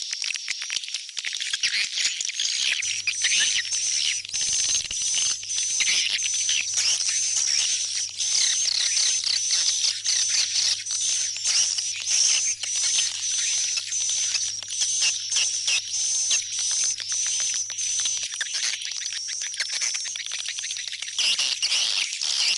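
Swiftlet (burung walet) lure call: dense, continuous twittering chirps over a steady high-pitched tone, with rapid clicks throughout.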